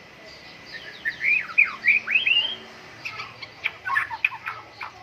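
White-rumped shama singing: a run of slurred whistles that rise and fall, then a quick series of short, sharp chattering notes.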